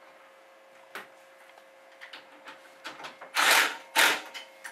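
Hand ratchet clicking in two short, loud bursts a little over half a second apart, near the end, as it runs the alternator bracket bolt into the cylinder head. A few light metal ticks come before it.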